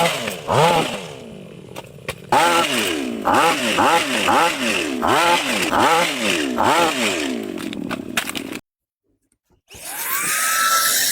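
A small motor whose pitch rises and falls about twice a second, as if repeatedly revved or loaded. It cuts off suddenly, and after a second of silence a different motor starts up with a rising whine.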